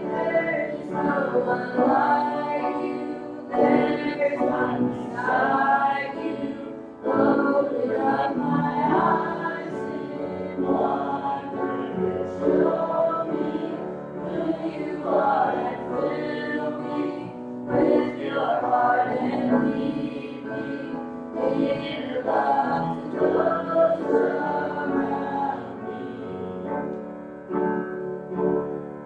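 Group of voices singing a worship song together with keyboard accompaniment.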